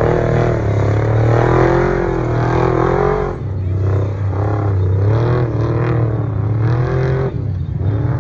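A motor vehicle's engine runs steadily, its pitch rising and falling again and again as the throttle changes.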